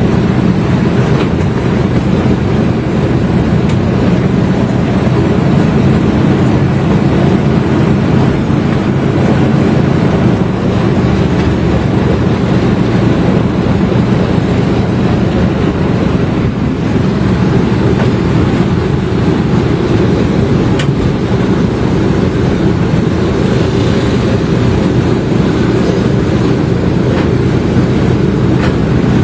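Zoo ride train running steadily, heard from aboard: a constant low rumble with an occasional faint click.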